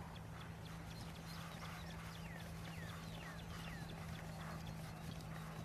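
Hoofbeats of an event horse cantering on turf, with a steady low hum underneath. From about two seconds in, a bird calls in a run of falling chirps.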